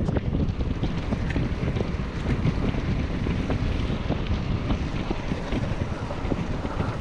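Wind buffeting the action camera's microphone over the rolling rumble of mountain bike tyres on rough asphalt, with small ticks and rattles throughout.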